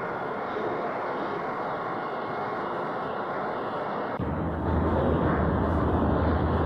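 A steady, machine-like drone with no clear rhythm, which gets louder and deeper about four seconds in.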